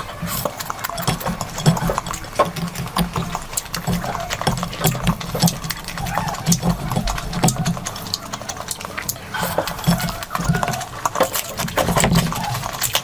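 Close-miked chewing and mouth sounds of someone eating: a dense run of irregular wet clicks and smacks over a low steady hum.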